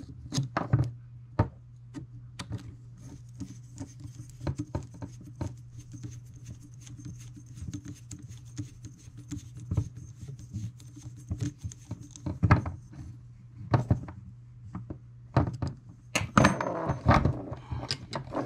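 Small clicks and taps of a hex driver turning a screw into a carbon-fibre drone frame as it is handled, over a steady low hum. A denser cluster of louder knocks near the end as the driver is set down on the bench.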